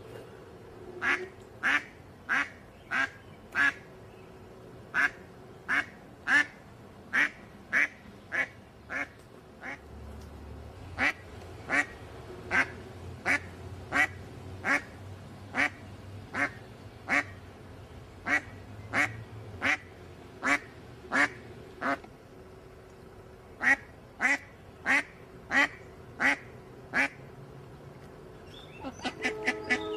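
Duck quacking: short, sharp quacks repeated at about one to two a second in runs, with a few brief pauses. Near the end a different, pitched sound comes in.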